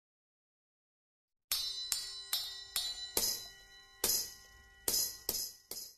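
Nine struck bell or chime notes, each ringing on and overlapping the next, starting after about a second and a half of silence; the first five come quickly, the rest more spaced out, and the sound cuts off abruptly.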